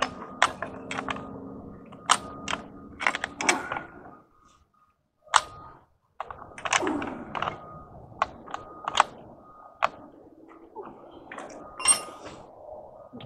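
Pipe wrenches clicking and knocking on threaded steel pipe and brass fittings as a fitting is tightened at a well head, one wrench holding the pipe steady while another turns it. Irregular sharp metal clicks, with a short silent gap about four seconds in.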